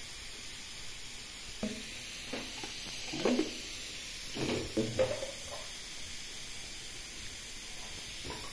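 Steady hiss under a few soft knocks and rattles from a small hand spice grinder being twisted over a plastic mixing bowl.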